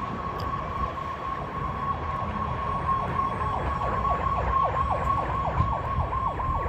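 Emergency vehicle siren sounding a steady high tone, joined from about three seconds in by quick falling whoops, about four a second, over a low rumble of engine and road noise.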